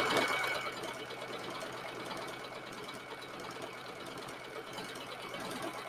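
Domestic sewing machine running steadily, zigzag-stitching through two layered pieces of leather as the machine feeds the leather under the presser foot.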